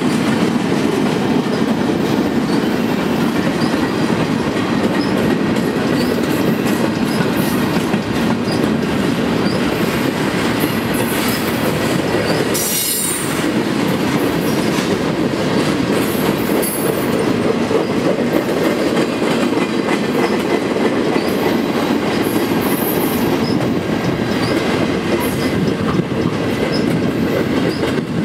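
Freight train's flatcars and intermodal cars rolling past: a steady rumble of steel wheels on rail with brief high wheel squeals now and then, and one louder high screech about halfway through.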